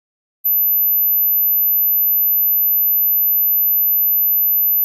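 A single steady, very high-pitched pure sine tone, starting about half a second in and holding at one pitch: the first hearing-test tone, one that everyone should be able to hear.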